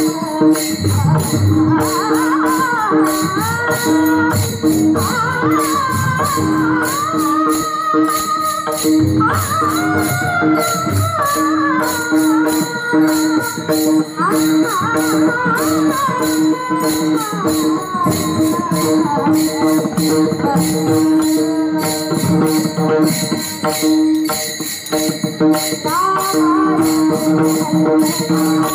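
Two women singing a Marathi devotional bhajan in raga Bhairavi, a gliding melodic line over a steady drone note. A chorus of taal hand cymbals clashes in a fast, even rhythm, with occasional low pakhawaj drum strokes.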